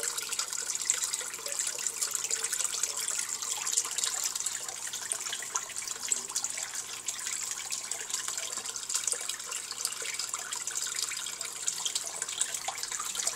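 A stream of water pouring into a tank of water, a steady splashing and trickling hiss.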